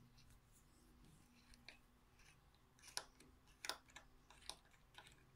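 Faint handling of a small plastic key fob with a small screwdriver: light scraping, then a few sharp little clicks about three seconds in and after, as the circuit board and battery are worked loose.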